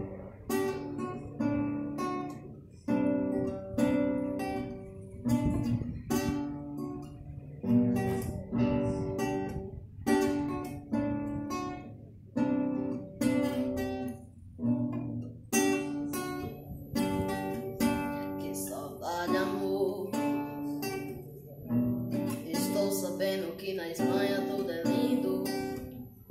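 Acoustic guitar strummed in a steady rhythm of repeated chords, each stroke ringing and fading before the next: the instrumental introduction before the singing begins.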